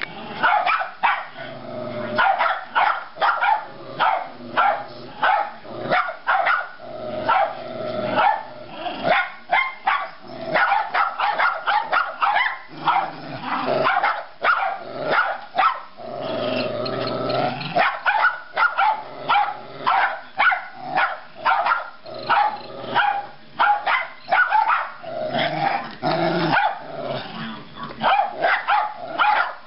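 Dogs barking and growling in quick repeated bursts, with a few longer drawn-out stretches about halfway through and again near the end. The dogs are reacting to the squeak of a cleaning patch being pushed through a .223 rifle's bore.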